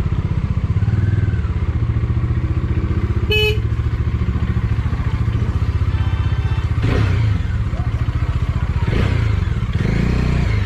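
Motorcycle engine running steadily, its rapid firing pulses forming a continuous low throb.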